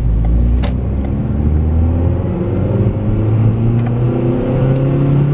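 Car engine heard from inside the cabin, its pitch climbing in a few steps as the car accelerates. A sharp click comes about half a second in.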